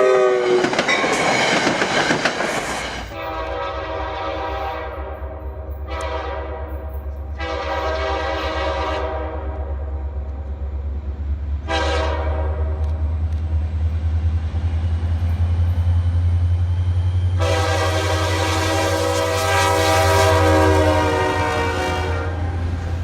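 Diesel locomotive air horn sounding a series of blasts, some short and some long, the last a long loud blast that stops near the end. Beneath it runs the steady low rumble of the train on the rails.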